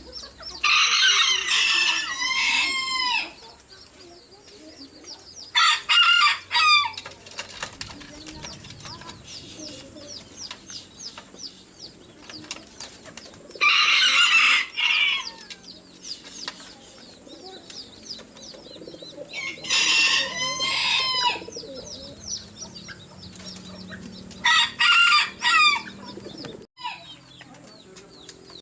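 Roosters crowing in turn: five loud crows, the first and longest about a second in, the others coming every five to six seconds, with quieter sounds between them.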